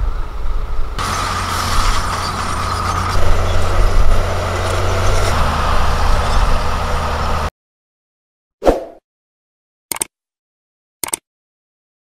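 Diesel engines of earthmoving machines running: a deep rumble of dump trucks at first, then a LiuGong B160C crawler bulldozer's engine running steadily with a constant whine, cut off abruptly. After a pause come three short sound effects, the first a loud hit with a fading tail and then two brief clicks.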